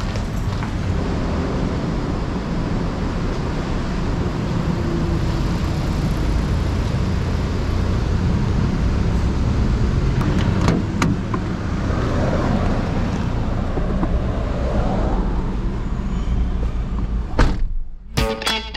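Steady road and engine noise heard inside a moving car, a low rumble with hiss and a few light clicks. Near the end it cuts off and upbeat guitar music begins.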